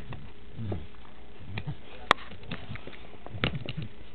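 A dog sniffing and rooting with her nose, with scattered soft knocks over a steady hiss and one sharp click about two seconds in.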